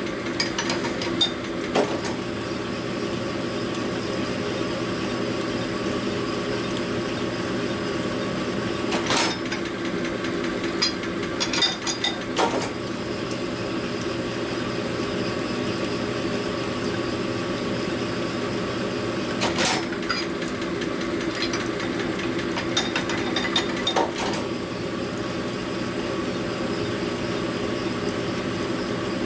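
Cylinder hone running steadily in a motorcycle engine cylinder bore, its stones cutting as the bore is deglazed. A few sharp knocks stand out over the steady hum.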